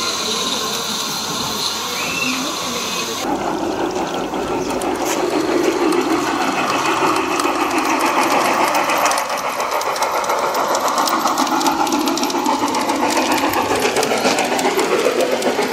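Small live-steam garden-railway locomotive running, with rapid, even chuffing and steam hiss. The sound changes abruptly about three seconds in.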